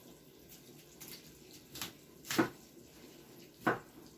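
Knife cutting through a head of yellow cauliflower on a wooden cutting board: a few short cutting strokes, the loudest about two and a half seconds in and another just over a second later.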